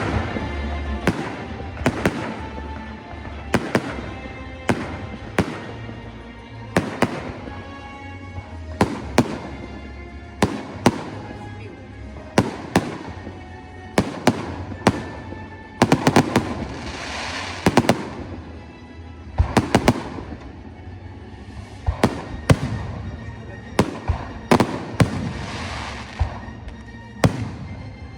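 Fireworks display: shells bursting with sharp bangs about once a second, with patches of dense crackling about the middle and near the end, over a music soundtrack.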